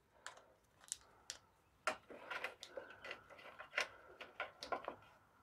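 Faint, irregular clicks and light rustling from hands working a wire sleeve around tractor tail-light wiring.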